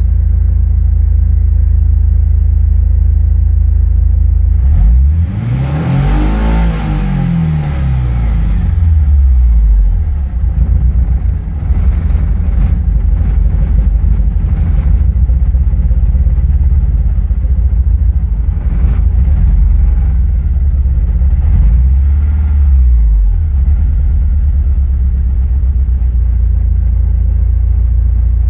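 1986 Porsche 944's 2.5-litre four-cylinder engine running, revved up once and falling back, then running unevenly with a stumble. A smaller blip of the throttle comes near the end. The rough running as the revs come down is the sign of the misfire problem the owner describes.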